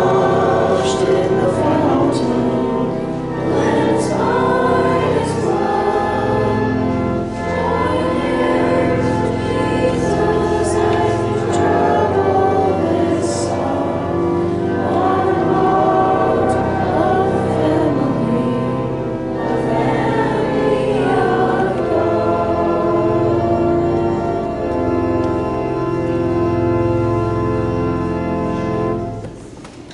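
A group of voices singing a hymn together with sustained instrumental accompaniment. The singing stops about a second before the end.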